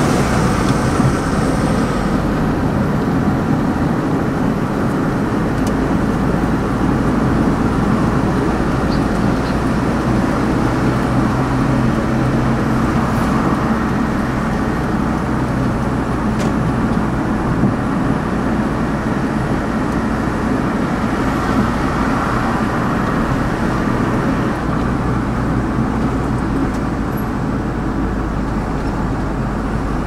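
Steady road noise inside a moving car on a motorway: tyre roar on the asphalt with a low engine hum, easing slightly near the end.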